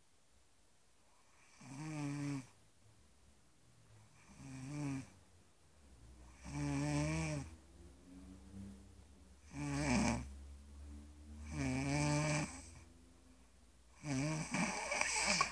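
A sleeping person snoring in a steady rhythm: six snores, one every two seconds or so. Each snore is a pitched buzz lasting about a second, with quieter breathing between them.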